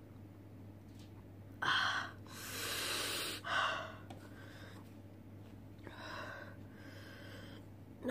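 A woman breathing hard through her mouth in a handful of gasps and long breaths out, the loudest two within the first few seconds and two fainter ones near the end: her mouth is burning from very spicy ramen.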